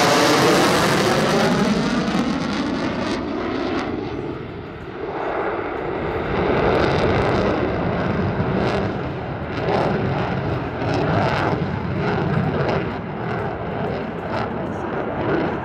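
F-22 Raptor fighter jet's engines in afterburner as it flies past, loudest at the start. The jet noise falls off about four seconds in, then swells again into a rumble with crackling through the rest.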